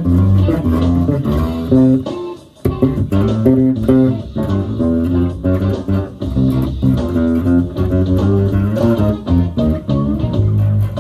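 Fender Jazz Bass played fingerstyle through an amplifier: a funky line of quick, rhythmic plucked notes, with a brief break a little over two seconds in.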